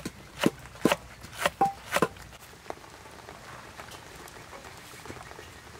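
A large knife chopping through a head of cabbage onto a chopping board: about four sharp strokes roughly half a second apart, stopping about two seconds in.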